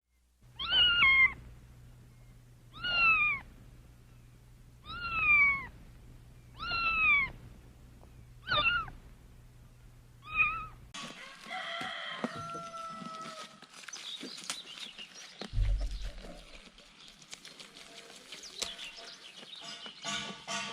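A cat meowing six times, about every two seconds, each meow short with a falling pitch. After about eleven seconds the sound changes abruptly to a noisier background of scattered clicks and short calls, with a single low thump.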